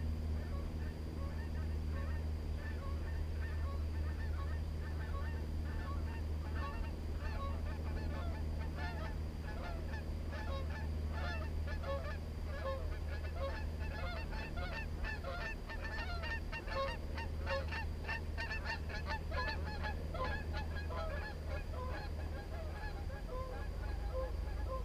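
A flock of geese honking, many short overlapping calls that grow thicker after the first several seconds and are busiest past the middle, over a steady low rumble.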